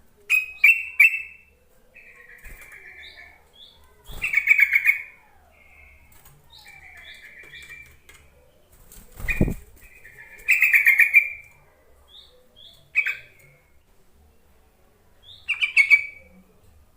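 Sooty-headed bulbul calling: loud bubbly chattering phrases every few seconds, with softer drawn-out notes between them. A brief dull thump comes about halfway through.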